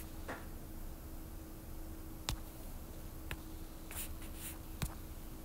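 A few light taps of a stylus on a tablet's glass screen, spaced about a second apart, over a faint steady hum.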